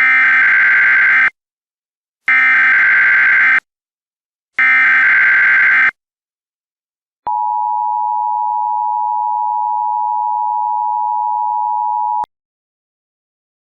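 Emergency Alert System activation: three buzzing SAME data header bursts, each a little over a second long with about a second between them, then the two-tone EAS attention signal held steady for about five seconds before cutting off abruptly. Together they mark the start of a civil emergency alert.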